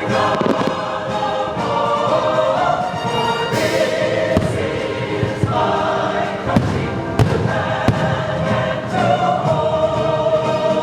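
A choir singing over orchestral show music, with fireworks bursts thudding and banging several times throughout.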